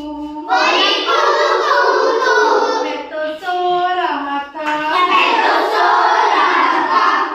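A group of children singing together loudly in two stretches of about two and a half seconds each, with a single voice singing a short stepped melody in between.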